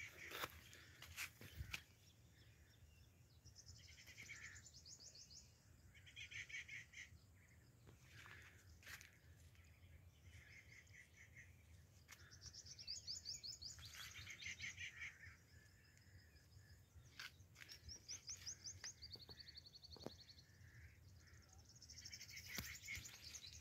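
Birds singing faintly in short bouts of rapid, evenly repeated high chirps, one bout every few seconds, with a few sharp clicks between them.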